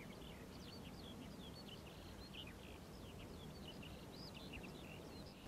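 Faint chorus of small birds chirping: many short, overlapping high notes and quick little whistles.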